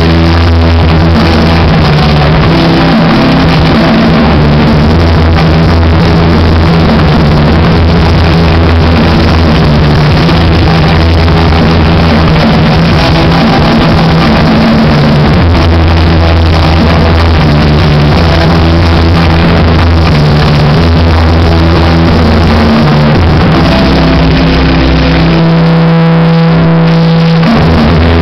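Live rock band playing loudly through amplifiers: electric guitars, bass guitar and drum kit, with heavy sustained bass notes. A few seconds before the end the band holds one long chord.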